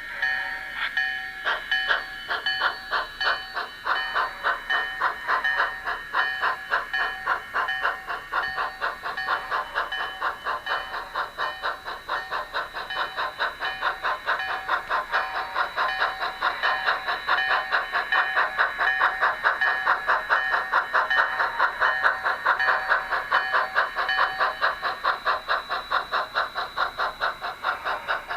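Model train running along the layout track: a steady whine with a fast, even pulsing rhythm of several beats a second, growing a little louder past the middle.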